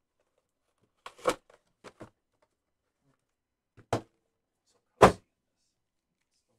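A few brief knocks and cardboard scrapes as a trading-card hobby box is handled and its lid lifted open. There are four short sounds about a second apart, the loudest a thud about five seconds in.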